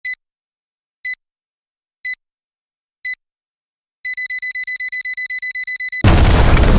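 Electronic alarm beeping: four single high beeps a second apart, then rapid beeping about seven times a second for two seconds. About six seconds in it is cut off by a loud explosion sound effect, a blast with a deep rumble that carries on.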